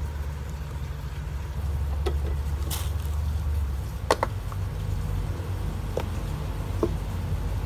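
A Sea to Summit X-Set collapsible silicone cup being handled, giving a few short clicks and rubs over a steady low hum.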